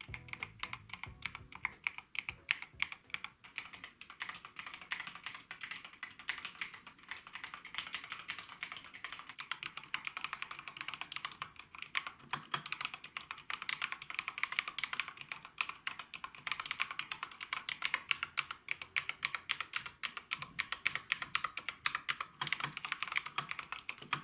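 Steady, rapid typing on a custom 75% mechanical keyboard: Akko V3 Pro linear switches, stock and unlubricated, under PBT keycaps in an MG75W case, making a dense run of clacks. The unlubed switches and stabilizers make it louder than the owner expected.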